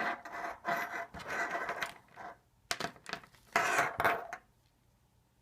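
Handling noise from RCA cables being turned over in the hand close to the microphone: scraping and rubbing in several bursts, stopping a little over four seconds in.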